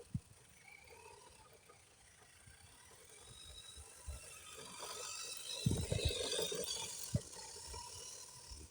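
Small electric RC scale truck driving, a faint gear-and-motor whir that builds toward the middle, with several knocks around the loudest part as it runs over bumps.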